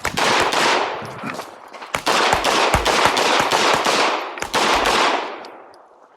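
9mm competition pistol fired in rapid strings during a timed IPSC course of fire, the shots running together into three dense volleys with short breaks between them. The firing stops a little after five seconds in.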